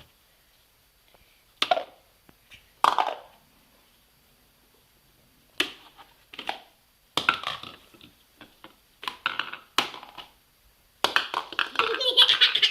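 Small microwave bowls being tapped and knocked against a plate to turn out steamed idlis: a series of irregular sharp knocks and clatters, coming thicker near the end.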